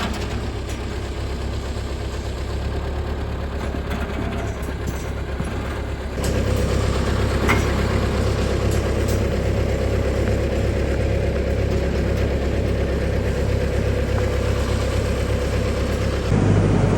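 A vehicle engine running steadily, getting louder about six seconds in.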